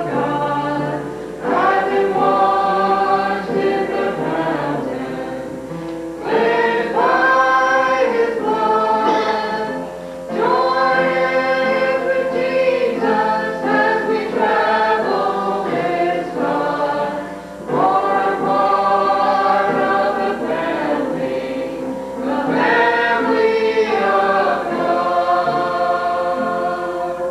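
A church choir singing gospel music in long phrases of a few seconds each, with brief pauses between them.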